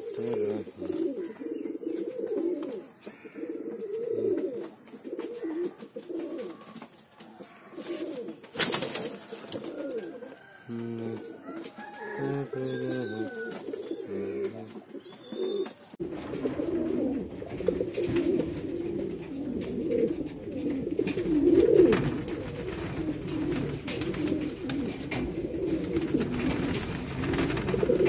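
Domestic pigeons cooing over and over, low wavering coos, with one sharp clap about nine seconds in.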